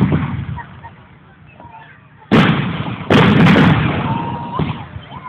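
Aerial firework shells bursting: a bang at the start, then two loud booms less than a second apart a little over two seconds in, each trailing off in a long rumble, and a smaller pop near the end.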